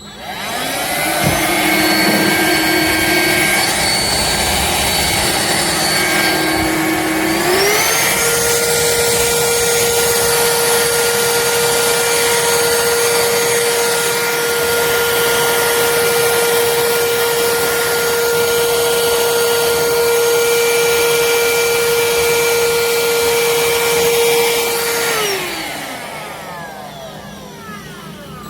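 Black+Decker POWERSERIES+ 20V MAX cordless stick vacuum's motor running with a steady whine. It spins up at the start and steps up to a higher pitch about seven seconds in, then winds down with a falling pitch near the end.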